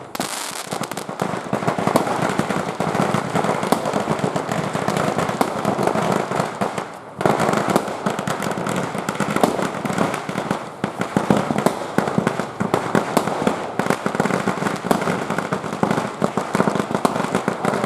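Fireworks going off in a dense, continuous crackle of rapid pops. There is a brief lull about seven seconds in, then the crackle picks up loudly again.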